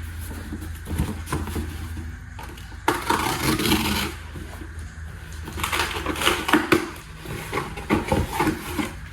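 A product box and its packaging being opened and handled: rustling and crinkling with small knocks and clatter, in irregular bursts.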